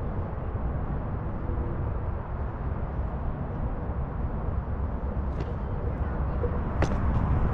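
Steady low rumble of wind buffeting the microphone and the tyre rolling on pavement while riding a Onewheel GT electric board, with a sharp click near the end.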